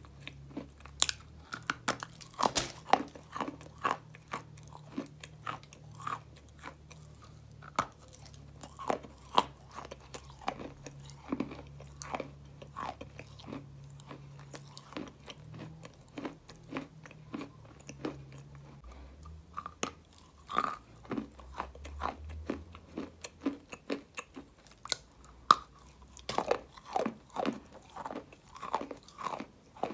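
A person biting into and chewing a dry chunk of white eating clay, with sharp, irregular crunches several times a second.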